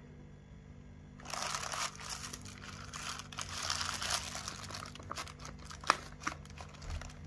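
Packaging crinkling and rustling as it is handled during an unboxing, starting about a second in, with scattered sharp clicks, one loud click near the end.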